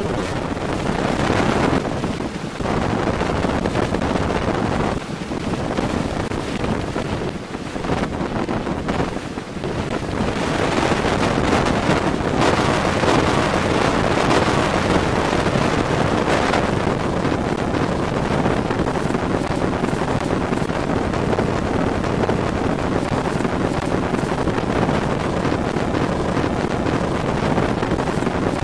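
Category 4 hurricane wind buffeting the microphone. It rises and falls in gusts at first, then blows harder and steadier from about ten seconds in.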